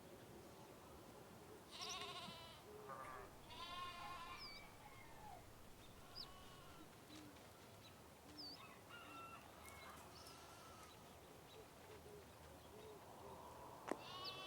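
Sheep bleating faintly: several quavering bleats in the first few seconds and another near the end, with a few short high chirps in between.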